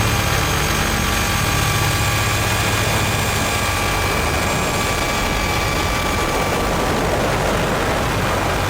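Helicopter running steadily: constant engine whine with the churn of the rotor underneath.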